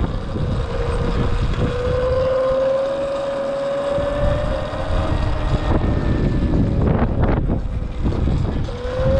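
Wind buffeting the microphone while riding a Sur-Ron X electric dirt bike, over the whine of its electric motor. The whine rises slowly in pitch as the bike gathers speed, drops away around five and a half seconds, and returns rising near the end.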